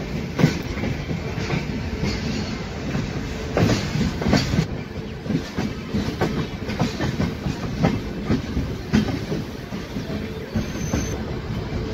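Passenger train running on the rails, its wheels clattering irregularly over rail joints over a steady rumble of the running gear, heard at an open coach door.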